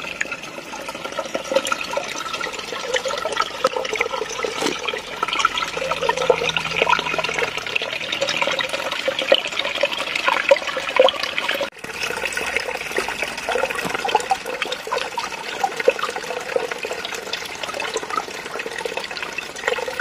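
A small, shallow woodland stream running and splashing over stones in a steady rush. It cuts out briefly once, about twelve seconds in.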